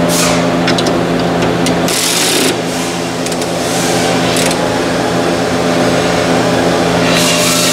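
Steady low machine hum, with several short noisy bursts over it at intervals.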